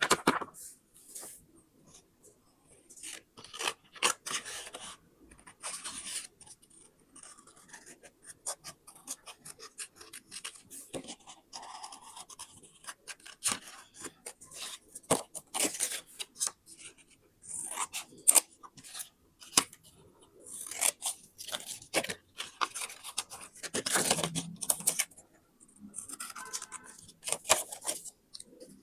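Scissors cutting paper in a run of irregular short snips, with longer rustling strokes of paper being handled in between.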